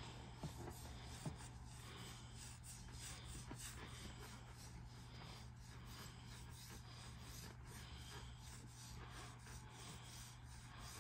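Back scratcher rubbing through a cat's fur in quick repeated strokes, a faint scratching rasp, with a couple of light clicks about a second in.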